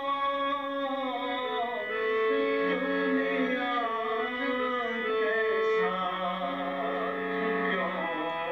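Harmonium playing a slow South Asian classical melody in long, held notes, with a voice singing along.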